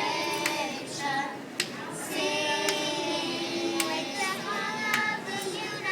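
Girls' choir singing sustained notes in unison, phrase after phrase, with a sharp tap or clap keeping time about once a second.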